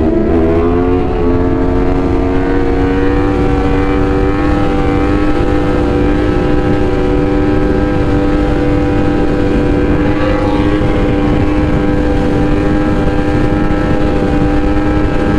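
Sport motorcycle engine under way, changing gear about a second in and then holding a steady pitch at constant revs.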